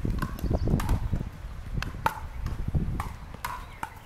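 Pickleball paddles striking the hollow plastic ball: several sharp pops at uneven intervals, over a low fluctuating rumble.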